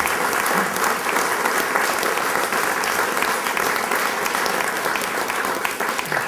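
Applause from a group of a few dozen people clapping.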